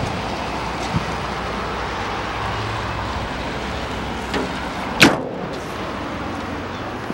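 A Jaguar Mark 2's car door shut with a single sharp clunk about five seconds in, over steady wind noise on the microphone.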